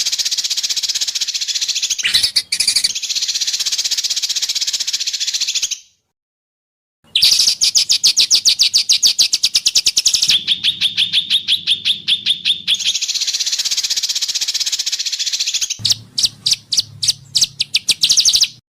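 Songbird song used as masteran training material: long, buzzy high trills and rapid-fire note runs in separate phrases. There is a full stop of about a second before the song resumes. Near the end the notes slow to about five sharp chips a second.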